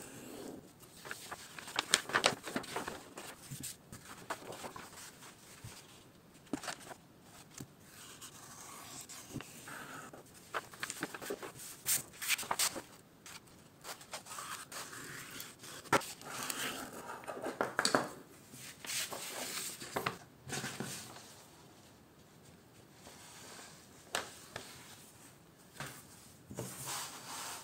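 Parchment sheets rustling and crinkling as they are folded into a quire, with a bone folder scraping and rubbing along the crease. Irregular scrapes and sharp crackles, busiest about two seconds in and again between about twelve and eighteen seconds, quieter near the end.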